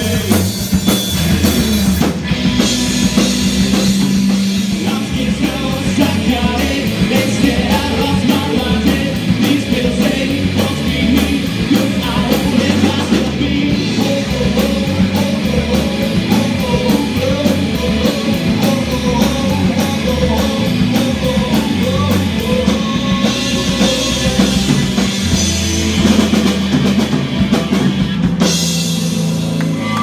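Live rock band playing: electric guitars and drum kit with a steady beat, amplified through the band's stage amps.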